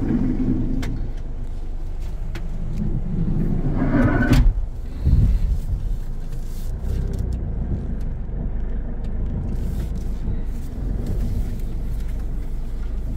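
Nissan NV350 van's diesel engine running steadily at idle, heard from inside the cabin through its open-pipe exhaust, with a brief low thump about five seconds in.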